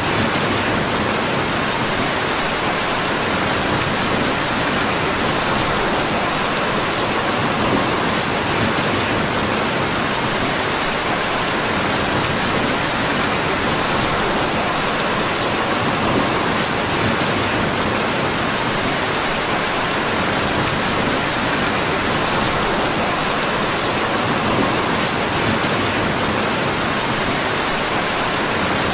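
Steady rain falling, an even hiss that holds at one level, with a few faint clicks scattered through it.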